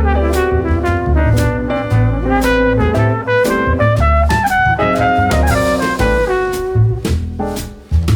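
Background music with a steady beat, horn-like melody notes over drums, with a brief drop-out near the end.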